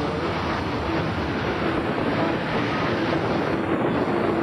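Steady rushing roar of strong wind, even and unbroken.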